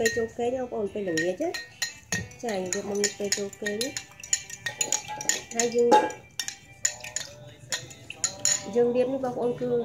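Metal spoon stirring in a glass bowl, clinking rapidly and repeatedly against the sides. A pitched, melodic sound comes and goes underneath.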